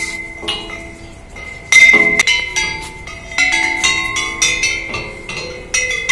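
Hanging metal pipes of an outdoor metallic xylophone struck one after another with a stick, each strike ringing on in clear bell-like pitches so that the notes overlap. About a dozen strikes come at an uneven pace, the loudest about two seconds in, over a high ringing tone that carries on throughout.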